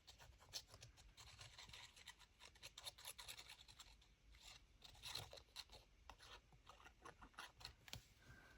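Near silence with faint, scattered small taps and rustles of paper and card being handled on a desk.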